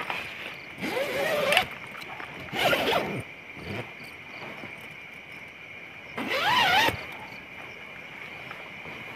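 Tent zipper being pulled in three short strokes, each a rasp that wavers up in pitch, heard over a steady high hum.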